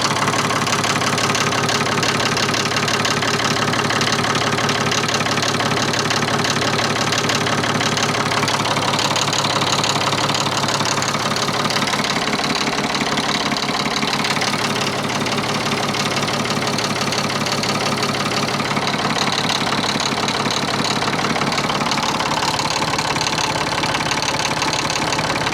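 Ford 4000 tractor engine idling steadily at an unchanging speed.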